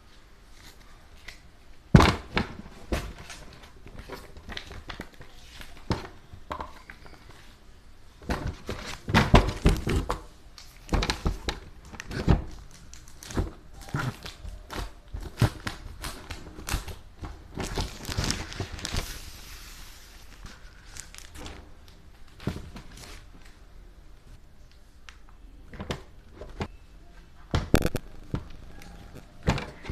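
Hands unboxing a new writing pad, handling its packaging: scattered crinkles, taps and knocks, with a sharp knock about two seconds in and a longer rustling stretch around the middle.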